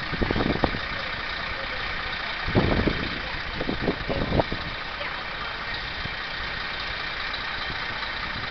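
Steady engine hum, with a few brief louder swells about three to four seconds in.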